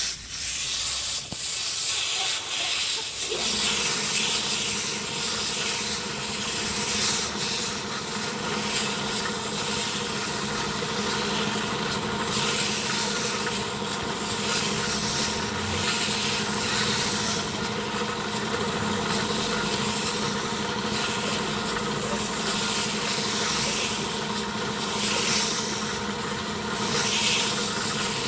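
Compressed air hissing from an air blow gun in uneven surges as it blows dust out of a truck's air filter element. About three seconds in a steady motor hum starts and keeps running under the hiss.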